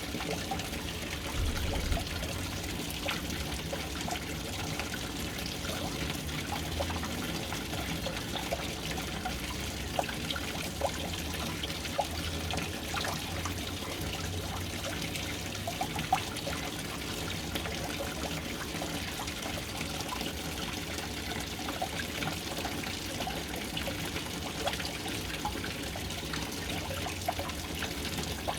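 Water pouring and trickling into a household water tank, a steady splashing stream with occasional louder drips.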